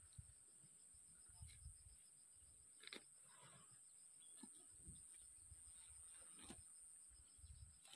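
Near silence: faint outdoor ambience with a steady high-pitched hum, soft low rumbles and a few faint clicks.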